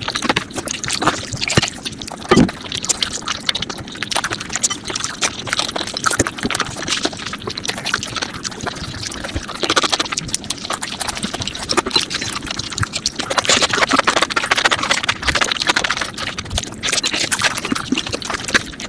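ASMR-style eating sounds sped up about five times: a dense, rapid stream of wet chewing, smacking and crunching clicks, busiest around ten seconds in and again near the end.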